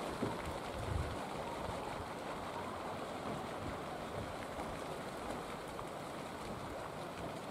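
Steady rushing outdoor noise over open water, with a brief low thump about a second in.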